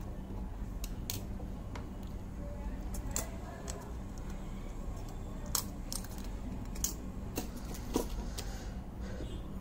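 Scattered small clicks and taps as a metal-tipped tool and fingers pry the circuit board out of a Nokia smartphone's housing, over a steady low hum.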